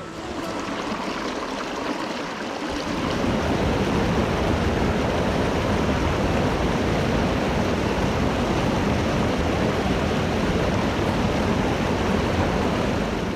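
Rushing water of a mountain stream, a steady noise that grows louder about three seconds in.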